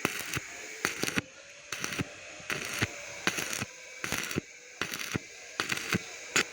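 Stick (arc) welding: the electrode arc crackles in short, sharp bursts about twice a second as a joint is run, over a faint steady hum.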